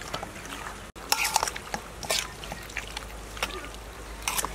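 Seasoned raw pork feet pieces being mixed by hand in a stainless steel bowl: irregular wet squelches and clacks of meat and bone against the metal. There is a brief dropout about a second in.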